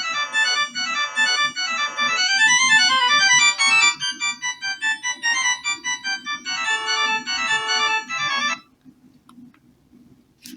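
BQ-2808 Telly mobile phone playing one of its preset ringtones: a quick electronic melody of short organ-like notes, stopping about eight and a half seconds in. A faint click near the end.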